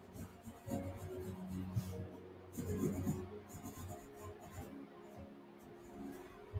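Graphite pencil scratching on paper in quick, irregular back-and-forth strokes, pressed hard to darken a shaded area, over soft background music with steady held notes.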